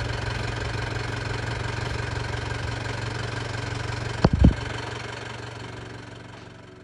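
Vehicle engine idling steadily, with two sharp knocks a little over four seconds in, then fading away over the last couple of seconds.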